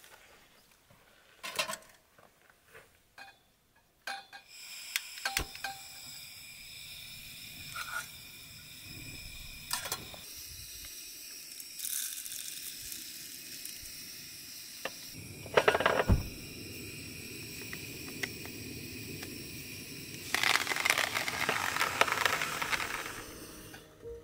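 Gas camp stove burner hissing steadily once it is lit, about four seconds in. Over the hiss come occasional knocks and clinks of a kettle and cups on the metal camp table, and a louder rushing stretch near the end.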